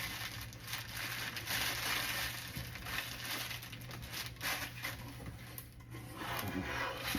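Cardboard and packing material rustling and scraping as a shipping box is opened and handled, with irregular small crackles and clicks throughout.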